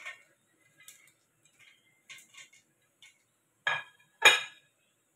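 Light scattered clicks of cashew nuts and a plate touching a stainless steel tray, then two loud sharp clinks of dishware knocking together about half a second apart near the end.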